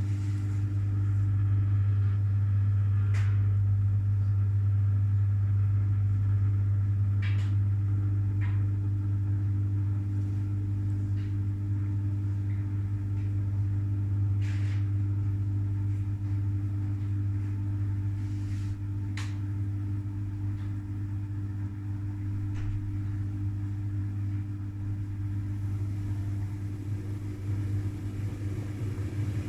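Front-loading washing machine spinning at a steady speed: a steady motor and drum hum with a few faint clicks. The hum turns rougher and a little quieter near the end.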